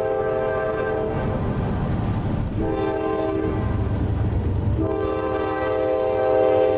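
Locomotive air horn sounding a chord of several tones: a long blast that ends about a second in, a shorter blast near the three-second mark, and another long blast starting near five seconds. A low rumble from the approaching train runs underneath.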